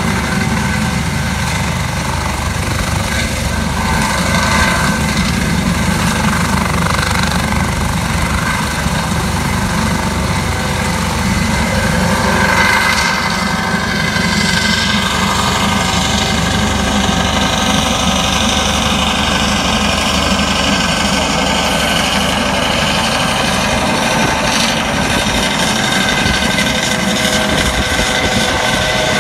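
Airbus AS365 Dauphin twin-turbine helicopter lifting off and climbing away overhead: a steady high turbine whine over the rapid beat of the main rotor, loud throughout, with the pitch sliding slightly in the middle as it passes.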